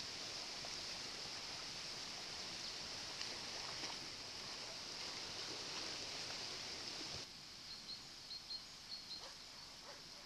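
Steady hissing rush of a river running with drifting ice floes during an ice run. About seven seconds in, the sound cuts to a quieter rush with a few short, faint calls over it.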